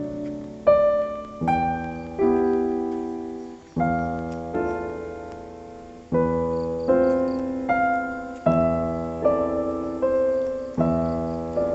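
Background piano music: slow chords struck one after another, each left to ring and die away.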